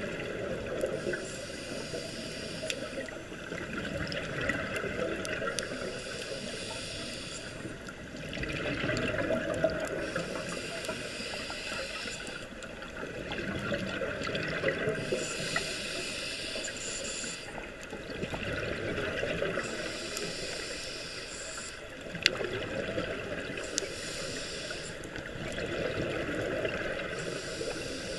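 Scuba regulator breathing underwater: a hissing inhalation through the regulator alternating with a louder bubbling exhalation, in a slow cycle of roughly five to six seconds.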